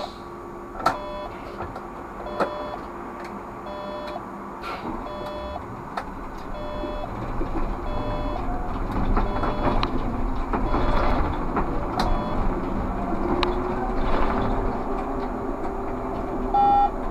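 Inside a Škoda 30Tr SOR trolleybus, a short electronic cab beep repeats about every second and a half through the first half and sounds once more near the end. Running noise builds as the trolleybus gets under way, and a rising electric motor whine comes in during the second half.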